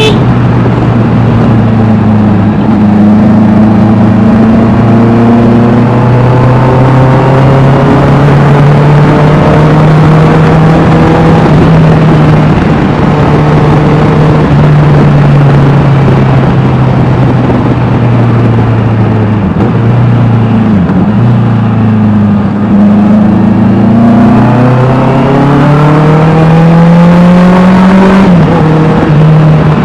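Honda CBR650R's inline-four engine with an Austin Racing aftermarket exhaust, running under way. Its note climbs slowly, wavers and dips about two-thirds of the way through, rises again, then drops suddenly near the end.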